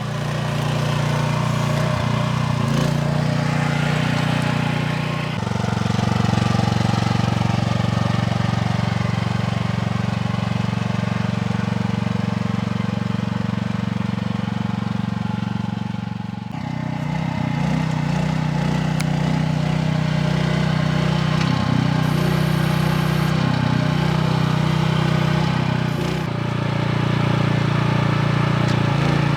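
Ducar 0.8-ton mini excavator's small 9.5 horsepower engine running steadily while the machine is worked. Its tone shifts about five seconds in, again around sixteen seconds, and near the end, as the load on the engine changes.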